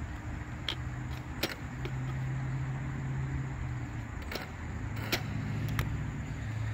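About five sharp clicks at irregular spacing, from the steering trim of an RC car's radio transmitter being adjusted, over a steady low motor hum.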